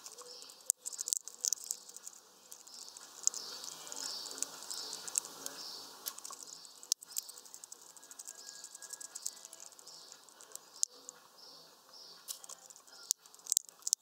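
High chirps repeated evenly, about two to three a second, with a few sharp ticks scattered through.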